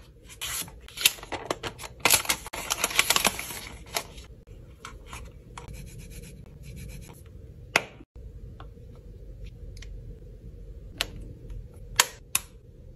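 Handling sounds from unboxing a Google Pixel Fold case: the cardboard box and plastic case scrape, rub and click. The scraping is dense for the first few seconds, then turns into sparser soft clicks, with a few sharp clicks later on as the case is handled and fitted onto the folded phone.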